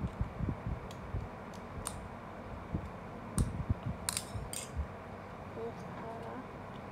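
Small scissors snipping at a plastic candy tube, with handling clicks and bumps: a few sharp clicks spread through, the loudest two close together about four seconds in.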